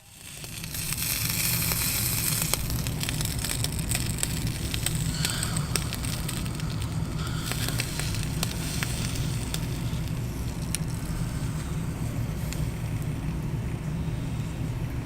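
Steady rumbling background noise with an even hiss and scattered faint crackles and clicks.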